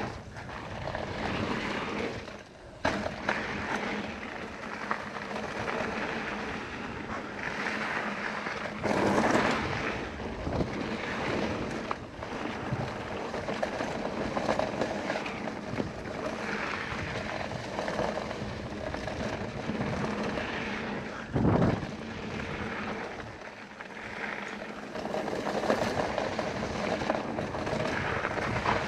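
Mountain bike rolling fast down a dirt and gravel trail: a steady rush of wind on the camera's microphone mixed with tyre noise on the dirt, with a few louder knocks and rattles from bumps along the way.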